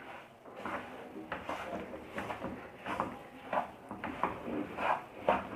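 Repeated scraping strokes of a utensil mixing a thick flaxseed, roasted flour and jaggery syrup mixture in a pan, about two uneven strokes a second.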